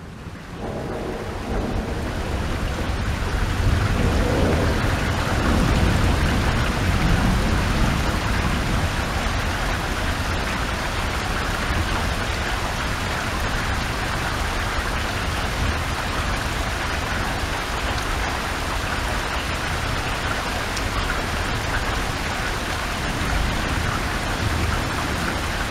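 Rain falling steadily in a thunderstorm, with a long, low rumble of thunder from about three to eight seconds in.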